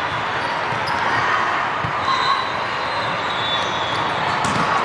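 Volleyballs being hit and bouncing on a court, with sneaker squeaks over the steady din of many courts playing at once in a large hall. A sharper thump of a ball contact comes near the end.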